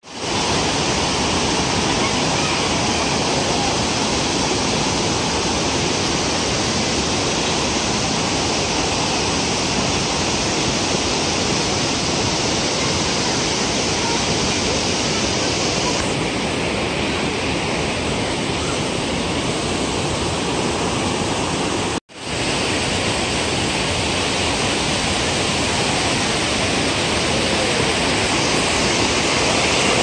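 Waterfall's steady rush of cascading water, a loud even roar of noise that cuts out for an instant about two-thirds of the way through.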